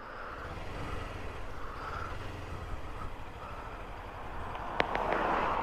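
Traffic heard through a motorcycle helmet camera: a steady low engine rumble under rushing road and wind noise. A few sharp clicks come near the end, then the rushing noise swells.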